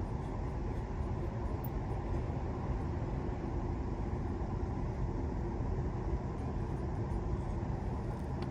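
Steady low rumble of background noise, with no distinct clinks or knocks.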